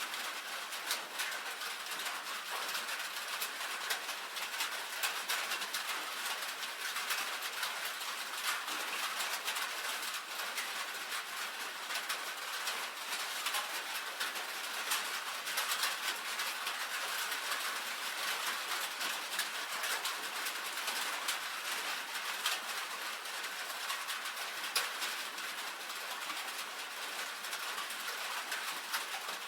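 Steady rain on a tin roof: a dense, even patter of many small drop ticks, mostly in the upper range, with no low rumble.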